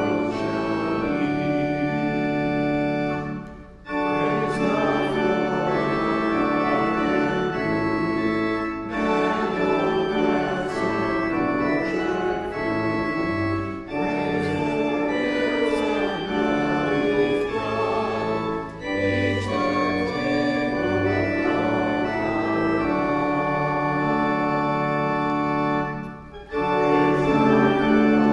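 Pipe organ playing a hymn in sustained chords, with a small choir singing along. The music briefly drops out twice, about four seconds in and near the end, between phrases.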